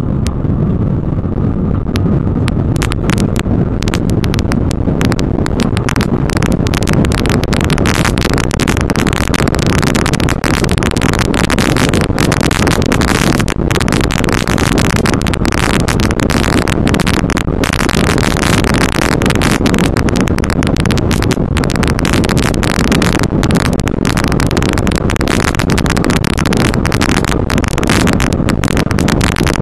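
Off-road race vehicle driven fast over rough desert ground, heard from inside the cab: loud, steady engine and drivetrain noise with a dense clatter of knocks and rattles over the bumps, which sets in about two seconds in.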